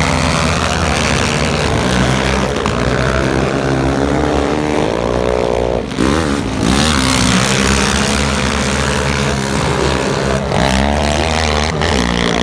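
Several racing quad bikes (ATVs) running hard on an ice track, their engines revving with pitch rising and falling through gear changes and throttle. The sound changes abruptly about six seconds in.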